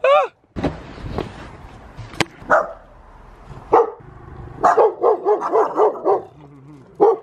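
A dog barking repeatedly at close range, single barks at first and then a quick run of about eight barks about five seconds in. A dull thud sounds about half a second in.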